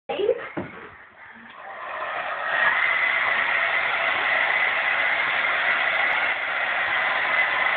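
Hair dryer switched on, its blower building over about a second to a loud, steady rush of air with a high tone in it. A short sharp sound comes just before at the very start.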